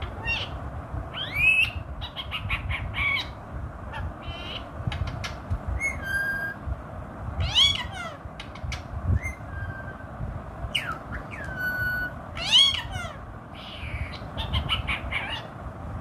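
Ringneck parrot calling: a string of short calls and chatter, some sweeping up or down in pitch, with sharp clicks in between, over a steady low rumble.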